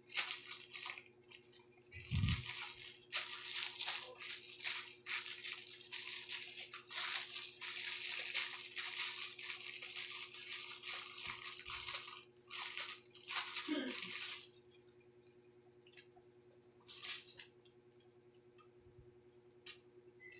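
Clear plastic packaging bags crinkling and rustling as they are handled, dying away about two thirds of the way through, with a few short rustles after.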